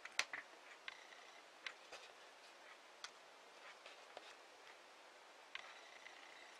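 Faint, scattered small clicks of 4 mm beads and a beading needle being handled while weaving a brick-stitch leaf, the sharpest click just after the start.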